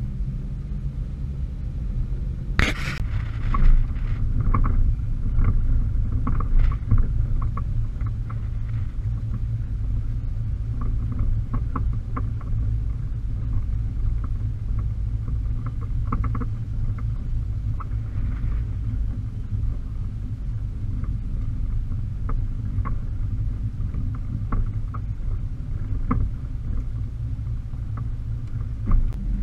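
A car driving slowly on a dirt and gravel road, heard from the vehicle: a steady low engine and road rumble with scattered light ticks and rattles, and one sharp clatter about three seconds in.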